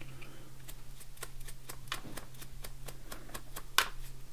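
Stiff-bristled dry-brush stroked back and forth over the raised edges of a small painted piece, giving a run of light, irregular ticks, with one sharper tick near the end.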